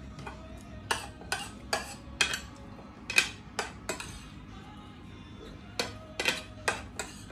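A fork and knife clicking and scraping against a dinner plate while food is cut: a dozen or so sharp, uneven clicks, with a pause of a couple of seconds in the middle.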